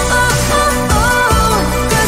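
Background pop music with sustained bass and a gliding melody line.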